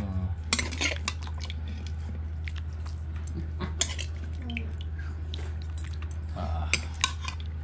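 Metal ladle clinking and scraping against a curry pot while serving chicken curry into leaf bowls. There are a handful of sharp clinks, the loudest about four seconds in and near the end, over a steady low hum.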